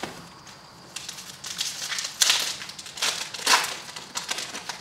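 A wrapper on a pack of baseball cards being torn open and crinkled by hand: a run of uneven rustling and crinkling, with a few louder swishes in the middle.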